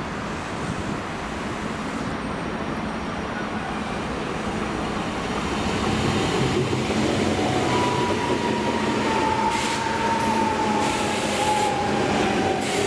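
ICE high-speed electric train approaching and passing close by on the station track: a rolling rumble of wheels on rail that grows louder over the first few seconds. A high whine that slides slowly lower in pitch joins it from about eight seconds in.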